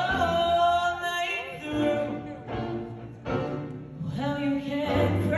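Live big band playing a slow jazz ballad passage between sung lines, with the horns holding sustained chords that swell and fade.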